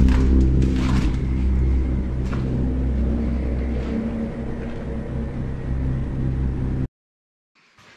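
A loud, steady low rumble with a hum in it, and a few sharp clicks and knocks in the first couple of seconds. It cuts off suddenly about seven seconds in.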